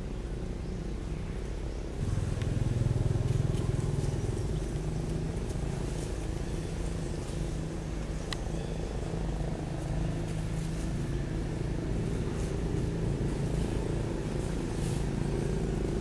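Steady low rumble of a running engine, which gets louder about two seconds in and then holds, with a few faint ticks over it.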